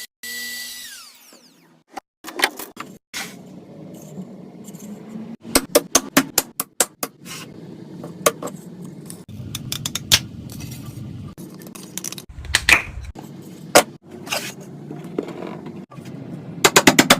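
A power tool's whine winds down and stops about a second in, followed by a long series of irregular sharp knocks and taps from woodworking. Near the end comes a fast, even run of strikes.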